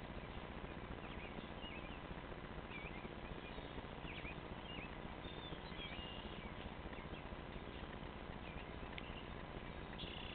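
Steady outdoor hiss with small birds chirping now and then, short high chirps scattered throughout, and a single sharp click about nine seconds in.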